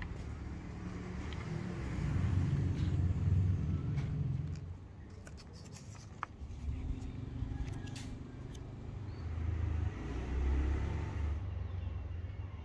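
Scissors snipping and rustling through a paper template, faint short clicks, under a low rumble that swells twice.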